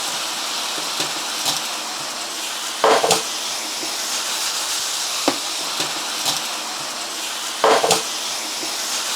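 Chicken pieces sizzling in hot oil in a pan with lemon, onion and garlic as they are stir-fried: a steady sizzle with small clicks and two louder clattering scrapes of the stirring utensil against the pan, about three seconds in and near the end.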